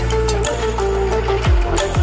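Background music: a held melody over a deep bass that slides down in pitch about a second apart, with a steady beat.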